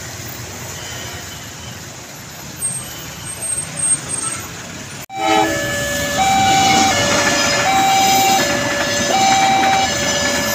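Road traffic running steadily at a railway level crossing. About halfway through, the crossing's electronic warning alarm starts, two tones alternating high and low, each lasting about three quarters of a second: the signal that the gates are down for an approaching train.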